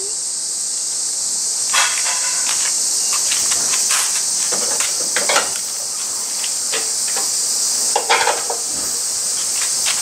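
A chorus of cicadas droning steadily in a high-pitched, sizzling hiss. Scattered soft clicks and shuffles of footsteps and handling come through it, most around two, five and eight seconds in.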